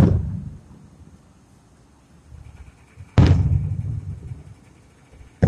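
Aerial fireworks shells bursting: three sharp booms, each followed by a rumble that dies away, the loudest about three seconds in and the last near the end.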